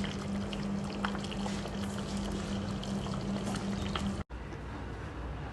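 Liquid sloshing and bubbling in a cooking pot over a steady low hum. The sound cuts off sharply about four seconds in and drops to a quieter background.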